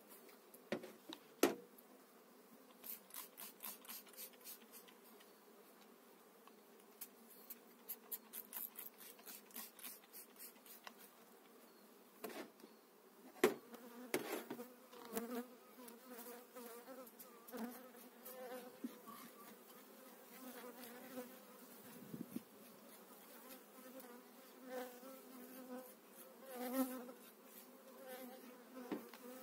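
Honeybees buzzing around an open hive, a steady hum that swells and dips. Sharp clicks and runs of quick scraping ticks come from a metal hive tool working the wooden frames, loudest about a second and a half in and again near the middle.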